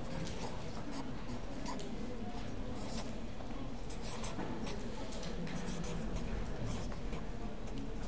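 Marker pen writing on paper: a string of short scratchy strokes, irregularly spaced, as figures are written.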